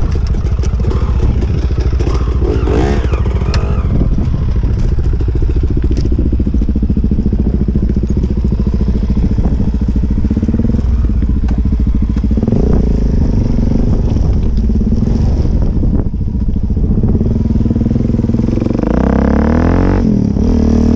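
Suzuki DRZ400's single-cylinder four-stroke engine running at low revs while riding slowly over a stony track, then revving up with a rising pitch near the end as it accelerates.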